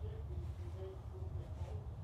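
Subwoofer playing a steady deep noise test signal while its level is being set for calibration.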